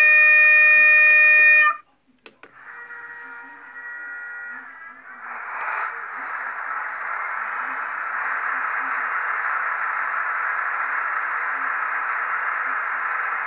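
Sound module of a Märklin H0 model of a DB class 216 diesel-hydraulic locomotive: a loud horn blast of about two seconds that cuts off abruptly. Then comes the engine start-up sound, a hum that rises slightly and about five seconds in turns into the steady sound of the diesel engine running.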